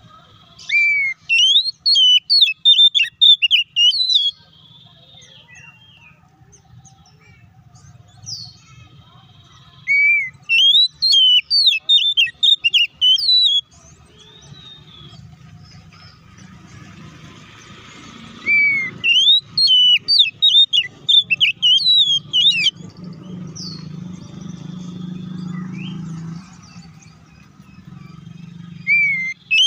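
Oriental magpie-robin (kacer) singing in three bouts of rapid, sharp whistled and chattering notes, each three to four seconds long and about nine seconds apart, with a fourth bout starting at the very end. It is an agitated song of the kind played as a lure to rouse other magpie-robins into singing.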